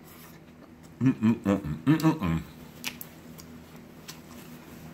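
A man with his mouth full of cheeseburger makes a quick run of five or six short muffled hums about a second in, followed by faint chewing clicks.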